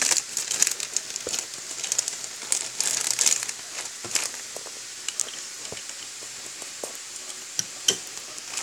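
Clear plastic toy bag crinkling as it is handled and pulled open, a thick run of crackles at first that thins to scattered crackles for the rest.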